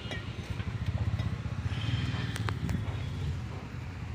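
Low, steady engine rumble with a pulsing beat, with three short sharp metallic clicks about two and a half seconds in.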